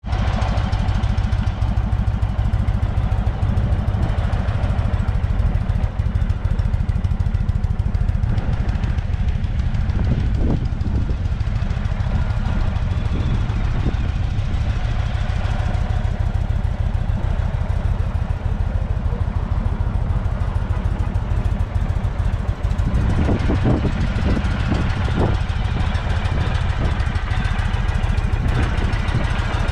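2022 Indian Chief's air-cooled Thunderstroke 116 V-twin idling steadily, a deep, even, pulsing rumble.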